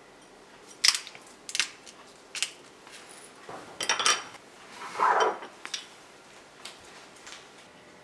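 Tableware being handled on a counter: a series of sharp clicks and taps on a small ceramic bowl and mug, a quick cluster of clinks near the middle and a short rough scrape about five seconds in, as a peeled boiled egg is salted and a spoon is set in its bowl.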